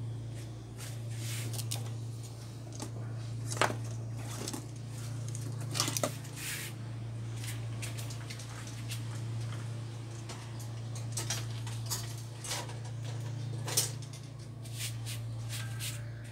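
Scattered clicks and light clatter of plastic trim strips being lifted off and handled on a TV's metal backlight panel, with a few sharper knocks, over a steady low hum.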